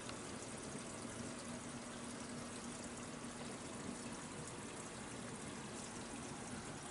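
Steady trickle and wash of water circulating through a saltwater reef aquarium.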